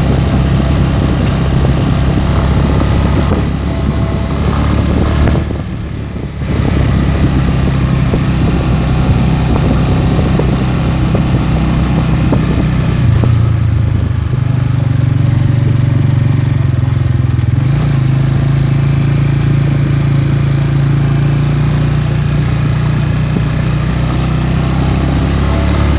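Italika RC200 motorcycle's 200 cc single-cylinder engine running as the bike is ridden, its note dropping briefly about six seconds in and changing pitch a couple of times later.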